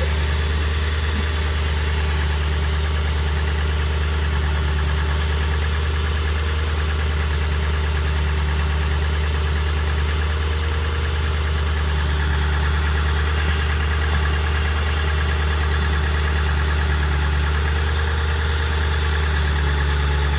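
Ford 4.6-litre V8 idling steadily with the engine bay open, run after a water pump replacement to check for coolant leaks.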